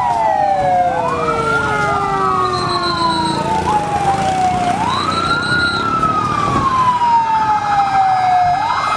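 Fire engine siren wailing. Its pitch climbs quickly and then falls slowly, about every four seconds, and a second overlapping siren tone is heard in the first few seconds.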